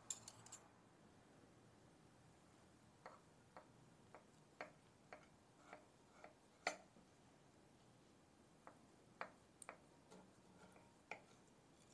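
A knife cutting a slice of chocolate tart on a glass plate: about a dozen faint, sharp clicks and taps at uneven intervals, starting about three seconds in, with a short pause about two-thirds of the way through.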